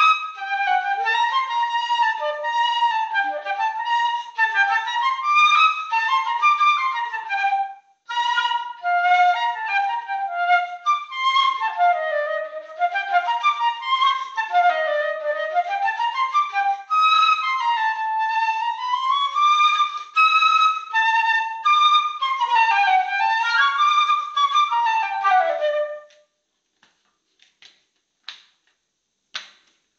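Solo concert flute playing a melody, the notes moving up and down in quick runs and slower swoops, with a brief break about a quarter of the way in. The playing stops a few seconds before the end, leaving only a few faint ticks.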